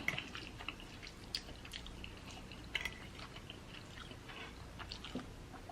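Quiet, close-up chewing of spaghetti: soft wet mouth clicks and smacks at irregular intervals.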